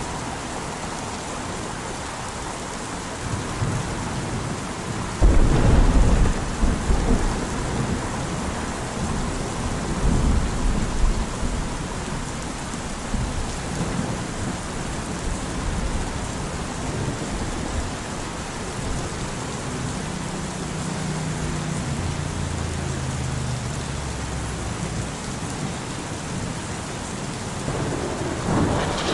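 Steady rain falling through a thunderstorm. A loud clap of thunder breaks in about five seconds in and rolls on for a couple of seconds, another rumble of thunder comes around ten seconds, and softer low rolls of thunder follow later.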